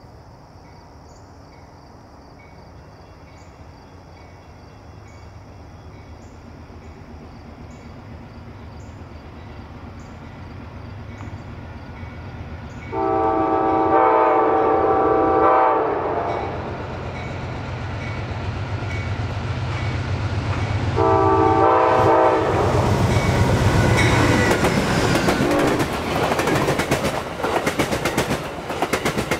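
Amtrak Downeaster passenger train approaching behind a GE Genesis diesel locomotive. Its engine hum builds, and its horn sounds twice: a long blast about halfway through and a shorter one about two-thirds through. The locomotive and coaches then pass close by, wheels clattering over the rail joints, while insects chirp faintly at first.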